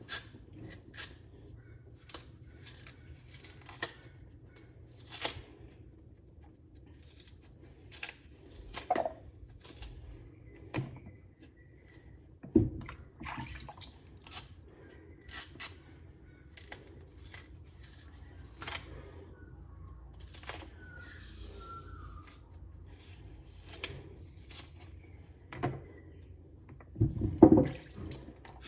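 Kitchen work: scattered short clicks, taps and knocks, with a faint steady hum underneath. There are stronger knocks about halfway through and near the end.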